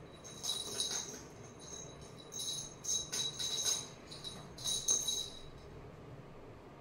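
A small bell inside a wire-cage cat toy ball jingles in several short bouts as cats bat it and roll it around. The jingling stops about five and a half seconds in.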